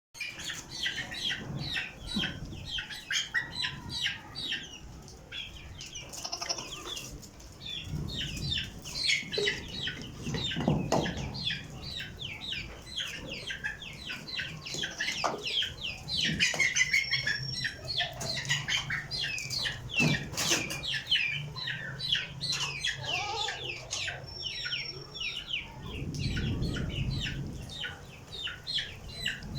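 A flock of birds chirping continuously, a dense chatter of short high calls, several each second, with a few low thumps among them.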